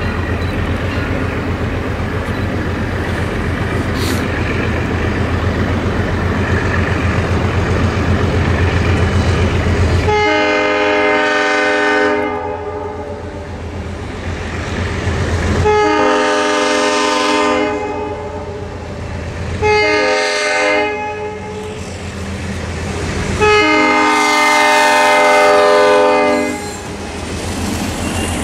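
Diesel locomotive of the Cuyahoga Valley Scenic Railroad train approaching a grade crossing with a steady low rumble, then sounding its horn in the grade-crossing pattern: long, long, short, long. The horn is a chord of several notes and the loudest thing throughout.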